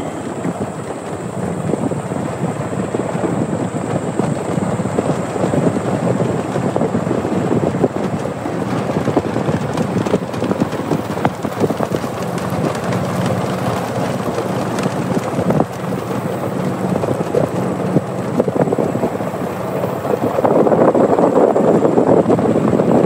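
Wind buffeting the microphone together with the rumble of a moving golf cart, growing louder near the end.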